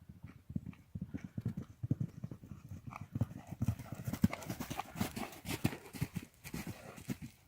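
Horse hooves thudding on the ground in a quick, irregular run of beats, with sharper clicking strikes from about halfway in.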